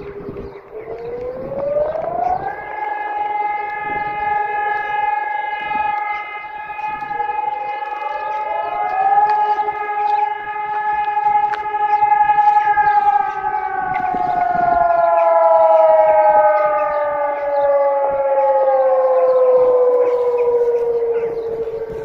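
Several civil defense sirens sounding together on a monthly test. A steady low siren tone winds up to a higher held pitch about two seconds in, and a second siren joins it about eight seconds in. Both slowly wind back down during the second half.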